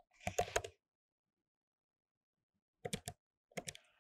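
Typing on a computer keyboard: a quick run of keystrokes, a pause of about two seconds, then a few more keystrokes near the end.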